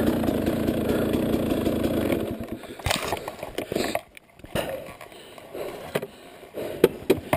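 KTM 300 two-stroke dirt bike engine running steadily, then stopping abruptly about two seconds in. After it stops, a few scattered knocks and scrapes.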